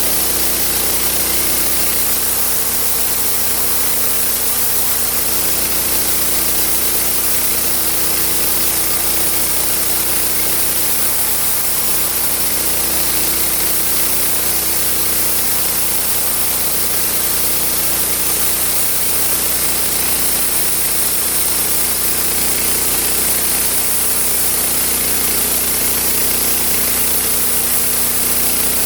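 Homemade sawmill running steadily under power, its blade cutting through wood with a constant high hiss over an even engine tone.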